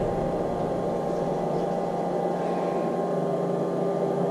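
Steady hum of several unchanging tones over a soft hiss, a constant background drone with no distinct handling or tool noises standing out.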